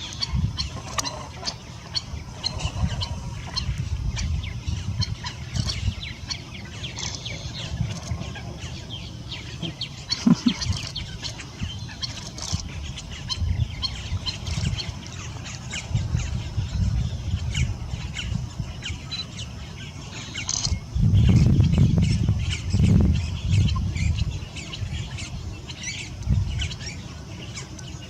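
Wetland birds chirping and calling in many short, high notes, over a low rumble that swells for a couple of seconds about 21 seconds in.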